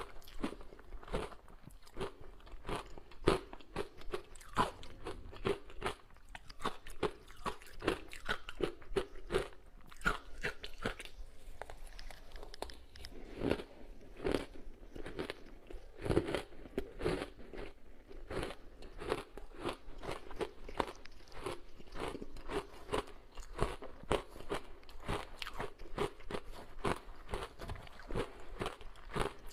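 Ice coated in matcha powder being bitten and chewed, with rapid, continuous crunching.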